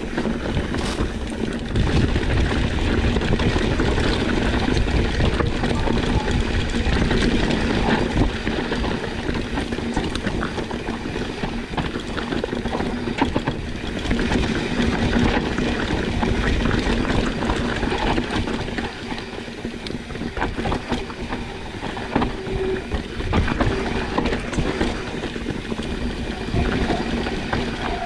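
Mountain bike riding fast downhill over a rocky trail: a steady rush of wind on the microphone over the rumble and rattle of the bike and tyres on rock, with scattered sharp knocks.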